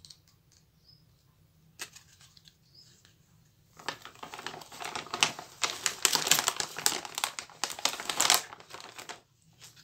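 Clear plastic packaging pouch crinkling and rustling as hands rummage in it and pull an item out, starting about four seconds in and lasting about five seconds, after a short rustle near the two-second mark.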